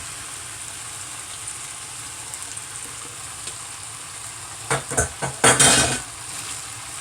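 Chopped seasoning frying in oil in a pot with a steady sizzle. Between about five and six seconds in, a few knocks and a loud surge of sizzling as seasoned chicken pieces go into the hot pot.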